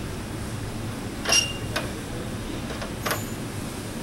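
Short metallic clicks as a mechanical pump seal is pushed onto its shaft adapter with a socket. There are three or four clicks, the loudest about a second and a half in with a brief ring, over a steady background hum.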